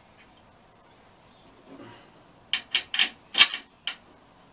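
Sharp clicks and knocks of parts and hardware being handled on a Volkswagen bus engine under assembly: a quick, irregular run of about six, starting just past halfway, the loudest about three quarters of the way through.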